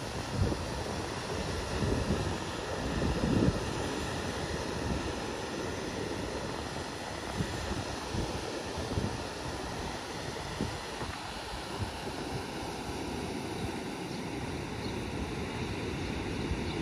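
Atlantic surf washing onto the beach as a steady wash of noise, with wind buffeting the microphone in low gusts, strongest in the first few seconds.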